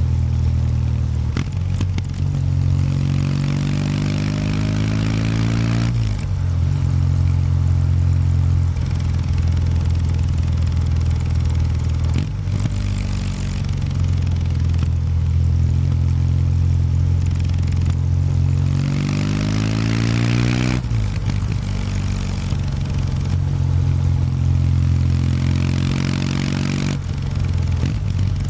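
2019 Kawasaki W800 Street's air-cooled parallel-twin engine on its stock exhaust, running under way. Twice it climbs in pitch as it accelerates and then drops off sharply at a gear change; between the climbs it holds a steady cruising note.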